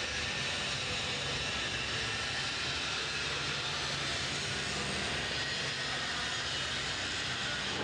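Steady background noise: an even hiss with a low, constant machinery hum underneath.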